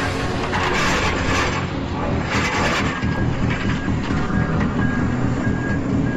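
Tracked excavator running hard, with loud clanking and rattling as it lurches down off a stack of tyres in the first couple of seconds. Short, evenly spaced beeps follow in the second half.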